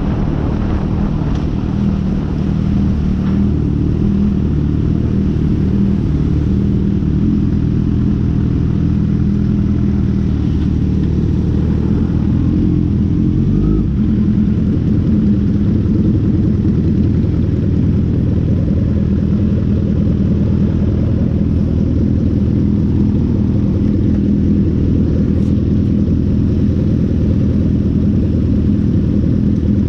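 Four-cylinder sport motorcycle engine running steadily under way, with wind noise on the microphone. The engine note shifts briefly about 14 seconds in.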